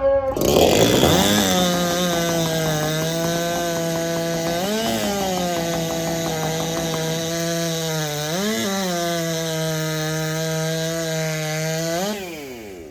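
Two-stroke racing chainsaw of the 90cc-and-under class at full throttle, bogged to a steady pitch as it cuts through the log. Its pitch rises briefly twice, about five and eight and a half seconds in, as the chain comes free between cuts. Near the end it revs up out of the wood and cuts off.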